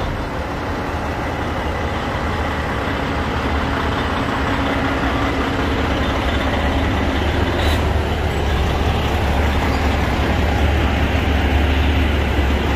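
Diesel semi truck engine pulling hard up a steep hill, a low steady drone that grows gradually louder as the truck approaches.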